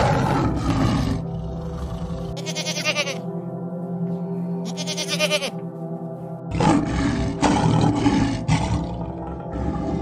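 A tiger calling loudly over steady background music, followed by shorter animal calls and another loud stretch of calling in the second half.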